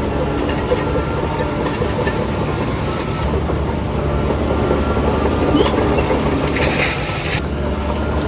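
SHANTUI DH17C3 crawler bulldozer's diesel engine running under load, with a dense metallic clatter from its tracks. A short hiss comes about seven seconds in.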